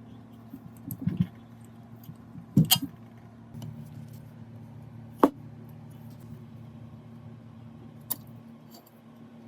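Metal parts clinking and knocking against one another in a few sharp strikes, the loudest nearly three seconds in and again about five seconds in, over a steady low hum.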